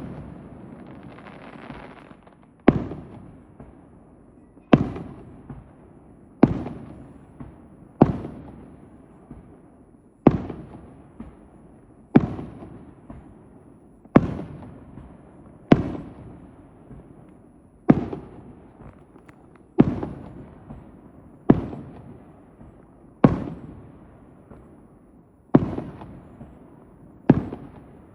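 Aerial firework shells bursting one after another, about fourteen bangs roughly every two seconds, each a sharp boom followed by a rolling echo that fades away.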